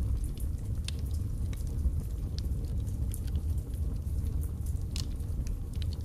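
Wood fire burning in a fireplace: a steady low rumble of flames with scattered sharp crackles and pops from the burning logs, one louder pop about five seconds in.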